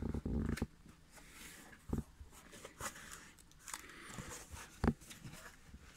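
Cardboard shipping box being handled as its flaps are folded open: scattered scrapes, rustles and soft knocks, with one sharp knock just before five seconds in the loudest.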